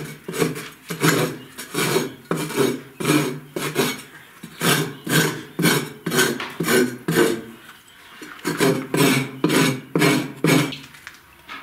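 A small hand hoe is chopping and scraping old plaster off a wall in light blows, about two a second. The blows stop shortly before the end.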